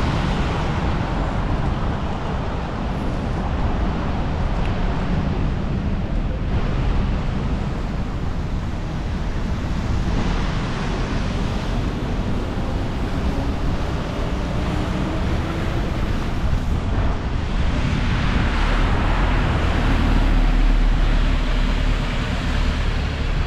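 Wind buffeting the microphone, a steady low rumble, over the constant noise of city street traffic.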